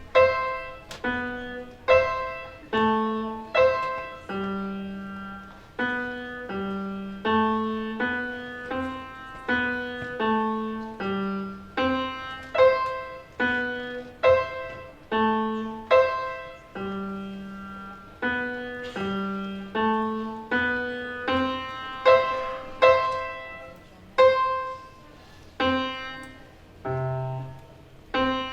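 Solo piano playing a slow, gently repeating pattern of chords, about one struck chord a second, each note ringing and fading.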